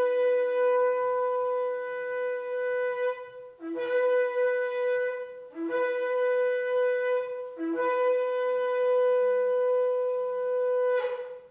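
Shofar (ram's horn) blown in four blasts. Each blast starts on a brief lower note and jumps up to a held higher note. The first and last blasts are long, and the last ends in a short shrill break before cutting off.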